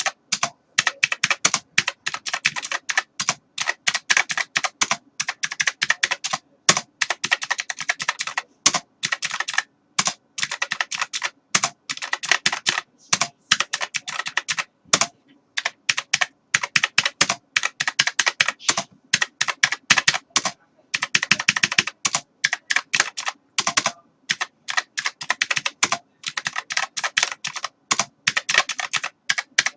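Typing on a computer keyboard: fast runs of key clicks with short pauses between bursts.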